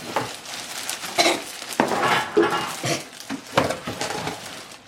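Irregular knocks, clicks and scrapes of a large cardboard box and the plastic parts inside it being handled and unpacked.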